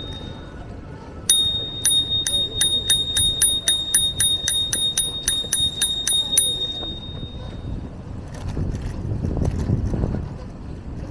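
Bicycle bell rung rapidly, about three rings a second for roughly five seconds, its tone ringing on briefly after the last strike. A low rumble follows near the end.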